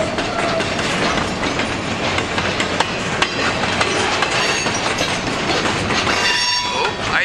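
Freight cars rolling past: a steady rumble and rattle with wheels clicking over rail joints. A high wheel squeal rings out for a couple of seconds in the second half.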